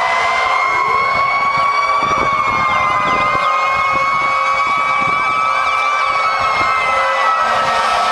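Several fire truck sirens sounding at once and overlapping: long wailing tones that drift slowly up and down in pitch, with quicker warbling sirens on top.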